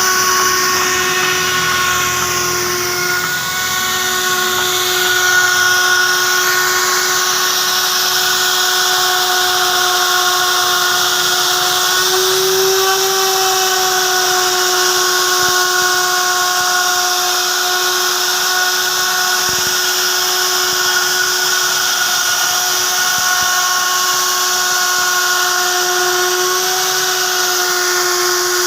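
Wood router running steadily with a high, even whine over a hiss.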